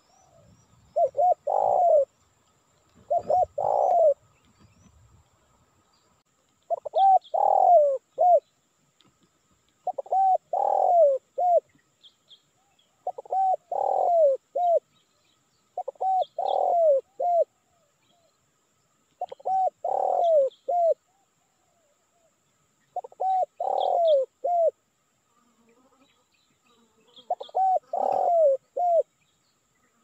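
Spotted dove (tekukur) cooing: a phrase of three or four cooing notes, the last one short, repeated about every three seconds, nine times. Faint high chirps of small birds come between the phrases.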